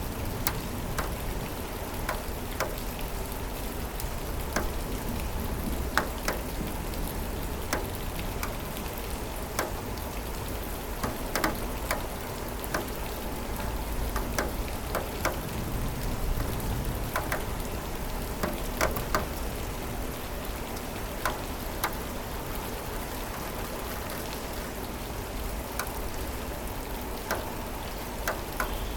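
Steady rain falling, with many separate drops ticking at irregular intervals over the even hiss of the downpour.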